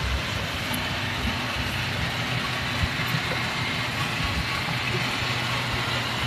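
Ford F-450 bucket truck's engine idling steadily, with uneven low thumps over the hum.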